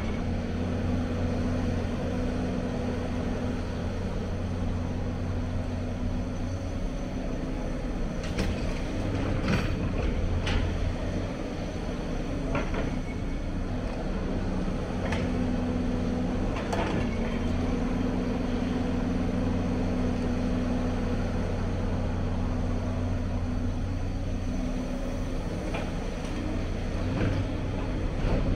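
Hyundai crawler excavator's diesel engine running under hydraulic load, its drone rising and easing as it digs and swings. A few sharp knocks and clanks of the steel bucket against rubble and stones come in the middle and again near the end.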